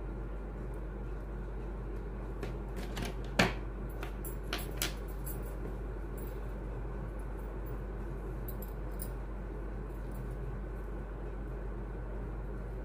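Steady low background hum, with a scatter of small clicks and clinks from hard craft pieces being handled; the sharpest click comes about three and a half seconds in.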